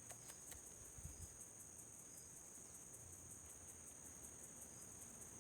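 Near silence with faint, steady high-pitched insect chirring, pulsing evenly, as from crickets.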